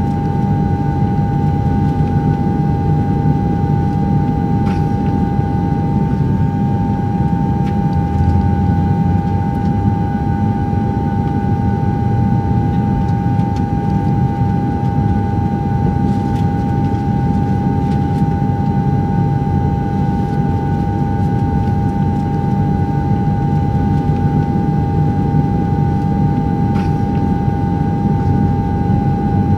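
DJI Phantom 2 quadcopter's motors and propellers running at a steady, unchanging whine in flight, picked up by the GoPro mounted on the drone, over a low rumbling noise.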